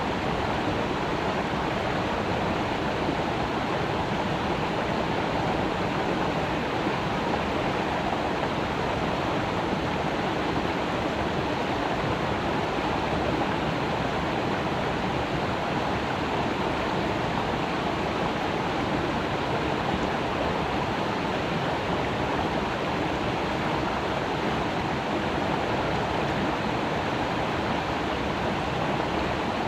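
Creek water rushing and babbling steadily, a constant even flow with no breaks.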